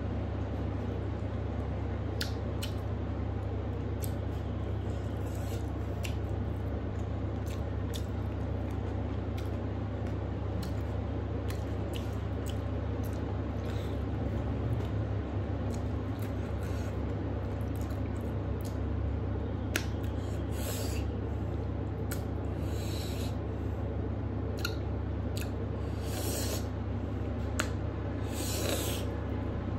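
Close-up eating sounds of a person eating rice and curry by hand: chewing, wet mouth clicks and smacks, and fingers mixing food on a metal plate, with several short hissing sounds in the second half. A steady low hum runs underneath and is the loudest sound.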